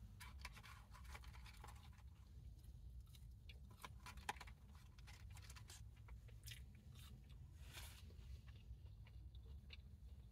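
A person chewing McDonald's fast food close to the microphone: faint, wet chewing with many small crunches and clicks, including a sharper crunch about four seconds in.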